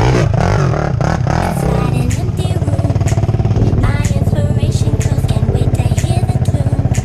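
Sport quad (ATV) engine revving hard, rising and falling as the rider pulls a wheelie. About two seconds in it settles into a steady, evenly pulsed run.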